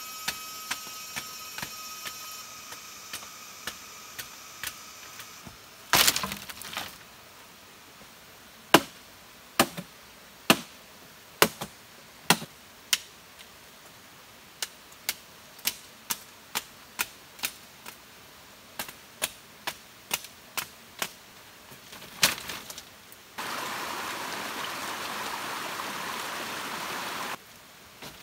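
Machete chopping into a thick bamboo culm: a long series of sharp knocks, about two a second at the steadiest, with a louder hit about six seconds in. A steady hiss comes in near the end.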